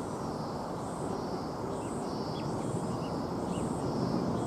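Outdoor airport ambience: a steady low rush of distant noise, with high-pitched animal chirping repeating about two to three times a second over it.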